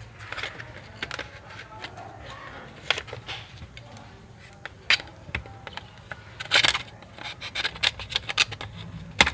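Plastic top cover of an HP Pavilion G4 laptop being pried off the base: its clips click and snap loose as the pry tool works along the edge. The sharp clicks and cracks come in a run that gets thicker over the last few seconds, over a faint low hum.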